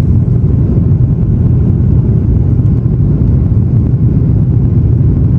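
Steady, loud low rumble inside an airliner cabin, heard from a window seat over the wing during final approach.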